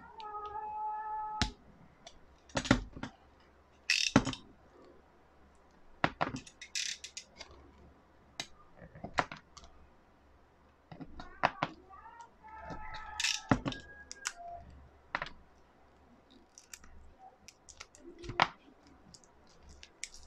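Hands handling the plastic parts and cables of a digital TV set-top box: scattered clicks, taps and knocks, a few of them sharper. Two short steady pitched tones sound near the start and again about twelve seconds in.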